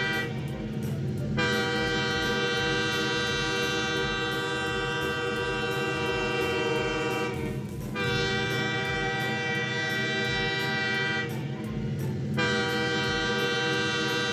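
Cartoon toy train sound effect: long, held train horn blasts with short breaks about a second and a half in, at about eight seconds and at about twelve seconds, over a regular low chugging beat.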